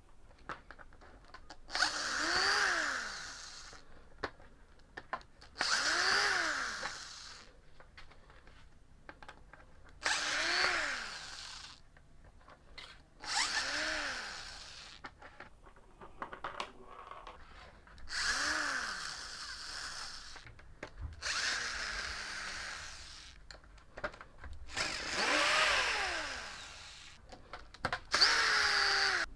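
Cordless drill or screwdriver run in about seven short bursts on the panel screws. Each burst is a couple of seconds of motor whine that rises in pitch as it spins up and falls as the trigger is let go.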